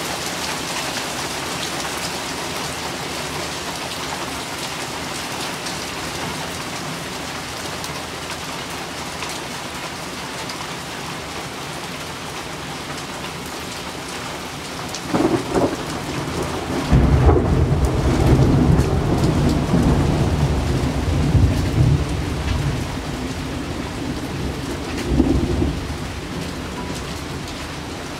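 Steady rain falling hard in a hailstorm. Thunder rolls in about halfway through, rumbling loudly for several seconds, and rumbles once more shortly before the end.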